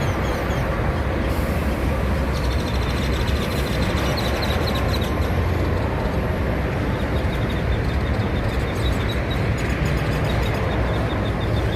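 Steady low engine rumble of idling vehicles, with faint rising whistles and chirps from birds mixed in, clearest near the end.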